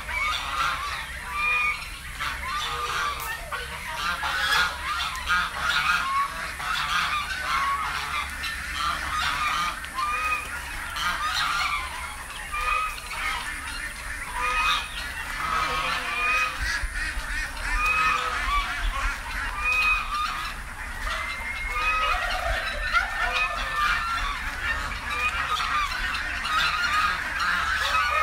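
Flock of white domestic geese honking over and over as they walk, many short calls overlapping, with other poultry calling among them.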